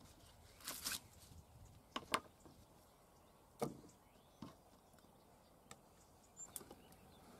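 Small knife slicing green vegetable stalks on a wooden cutting board: a few separate crisp cuts and taps of the blade on the board, the sharpest pair about two seconds in, with lighter knocks spaced out after.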